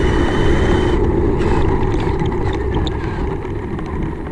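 Electric RC car motor whining at a steady high pitch, fading after about a second. Under it, a rough rumble of the car driving along the ground.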